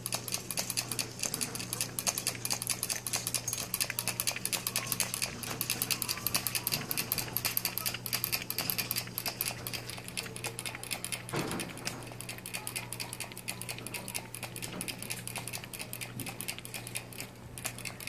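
Kinkajou drinking from a cage water bottle, licking the metal sipper tube and making a rapid, steady clicking.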